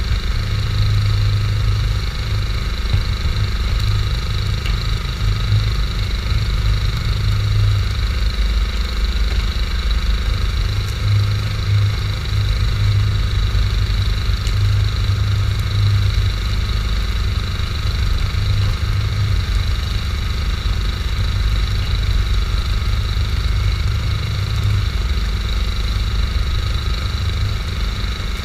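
Fishing boat's engine running steadily at a constant speed, a low continuous drone.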